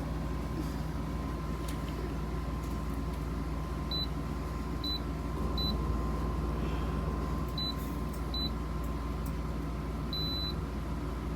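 Steady low hum with a faint steady tone. About four seconds in, short high electronic beeps begin, six in all, the last one held a little longer.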